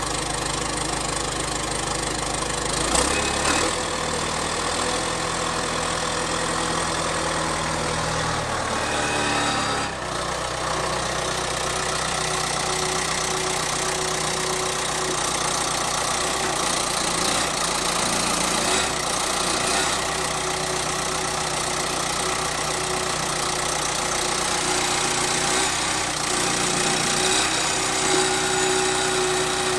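1995 John Deere 450G crawler dozer's diesel engine idling soon after a cold start. Its speed drops about eight to ten seconds in, then it runs steady.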